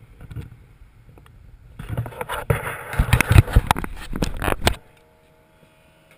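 Handling noise from a wide-angle camera being moved in close, rustling and knocking, with wind on the microphone. It starts about two seconds in, lasts about three seconds and stops abruptly.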